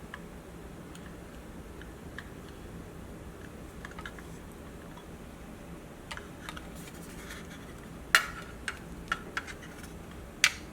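Scattered light clicks and taps from a laptop being worked on, with a sharp, louder click about eight seconds in, a few quick ones after it and another near the end.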